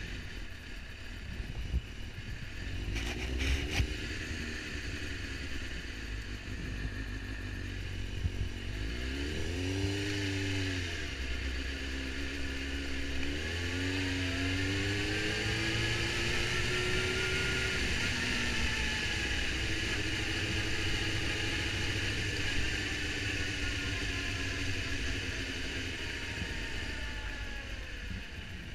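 Suzuki GSX-R750's inline-four engine pulling away and accelerating, its pitch rising and then dropping at each gear change. Wind noise on the helmet-mounted microphone builds as speed rises.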